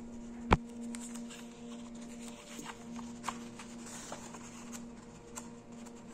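Paper worksheet pages in a ring binder being handled and a page lifted: light rustles and small ticks, with one sharp knock about half a second in. A faint steady hum sounds underneath and fades out a couple of seconds in.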